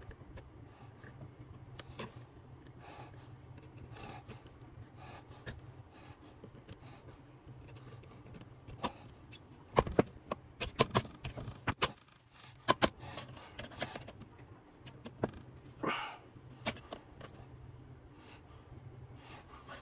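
Hand tools clinking and tapping against the metal parts of a 231J transfer case being reassembled. Scattered light clicks come first, then a denser run of sharp metallic clinks from about halfway through.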